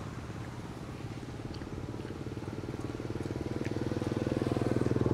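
A small engine running with a steady low drone, growing louder from about two seconds in.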